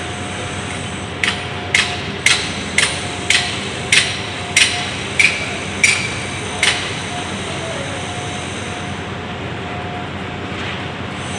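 About ten sharp hammer blows, roughly two a second, some ringing briefly. They stop about two-thirds of the way in, leaving a steady construction-site machine hum.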